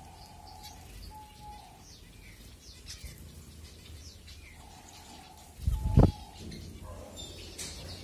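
A flock of zebra finches calling with many short, high chirps while feeding together. A brief low rumble about six seconds in is the loudest sound.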